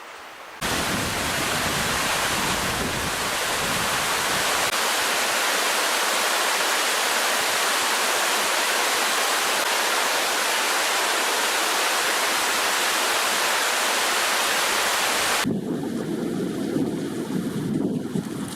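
Rushing river water, the Kiyotaki River's rapids or falls: a loud, steady hiss that cuts in abruptly. About 15 s in it switches to a lower, uneven rushing.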